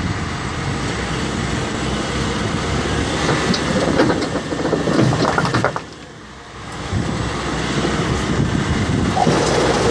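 Massey Ferguson 6480 and Valtra N163 tractors running as they work a field, pulling a destoner and a bed tiller; a steady noisy machinery sound that drops briefly about six seconds in.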